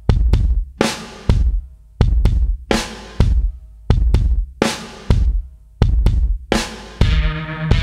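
Background music with a steady drum beat of kick and snare hits. About seven seconds in, a sustained bass and chords come in under the beat.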